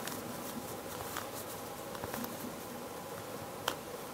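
Faint, scattered ticks of a needle being pressed through the trouser fabric into the pattern paper beneath, pricking marks along the seam line one point at a time, over a steady low room hum. The clearest tick comes near the end.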